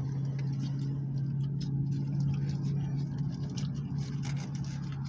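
A parked car's engine idling with a steady low hum. Over it come small wet clicks of chewing and the crinkle of a foil burrito wrapper.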